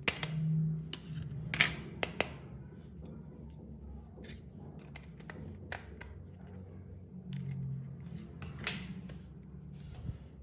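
Small hand tools clicking and scraping against a phone's parts in irregular strokes, a few sharp clicks standing out, over a low steady hum.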